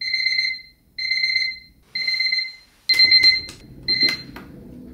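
Alarm clock beeping: five short, high electronic beeps about one a second, then it stops a little after four seconds. Bedding rustles and a few sharp clicks come in about three seconds in as someone reaches for the bedside.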